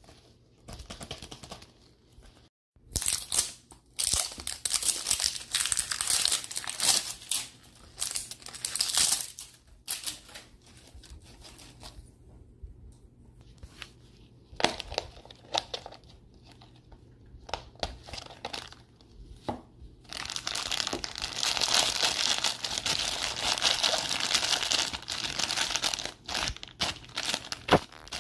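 Plastic wrapping crinkling and tearing as it is worked off a toy by rubber-gloved hands, in bursts of rustling. In the middle it drops to sparse light clicks and taps as a hard plastic capsule is handled, then a long run of crinkling plastic starts about twenty seconds in.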